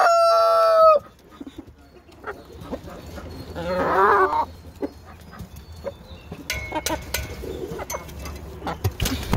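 Chickens in a pen: a rooster's crow ends in a loud held note about a second in, a hen gives a wavering call about four seconds in, and then come scattered clicks and rustles as the birds scurry about.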